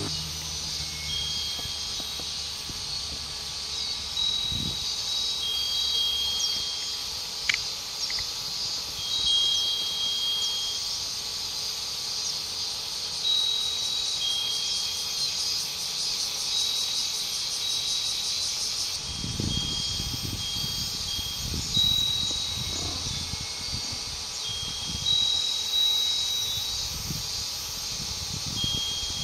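A Japanese wind chime (fūrin) rings now and then in short, clear, high single notes at a few different pitches, over a steady, dense chorus of insects. In the second half, wind rumbles on the microphone in gusts.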